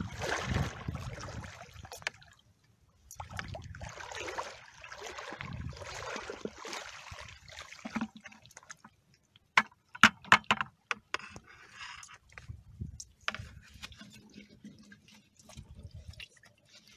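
Water splashing and sloshing in uneven bursts, with a brief lull about two to three seconds in and a run of sharp clicks and knocks around ten seconds in.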